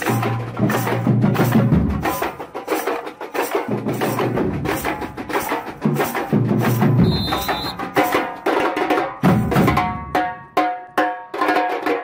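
Brazilian street percussion band drumming: a steady, dense clatter of sharp hand-percussion strokes, with deep bass drums coming in and out in passages. Near the end the bass drums drop out, leaving crisp, ringing strikes.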